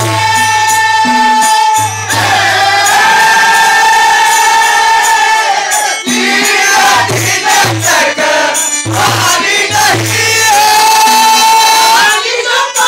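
Male voices singing a Muharram rivayat devotional song, led by one singer, to harmonium and tabla. The harmonium holds a steady reed tone and the tabla plays repeated low strokes under the voices.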